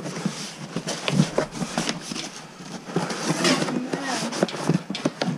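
Cardboard box and its contents being handled by gloved hands: cardboard rustling and scraping, with scattered light knocks.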